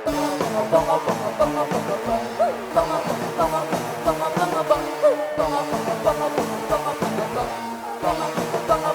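Band music with a steady drum beat and a busy melodic line over it; the full band comes in louder right at the start, after a guitar-led passage.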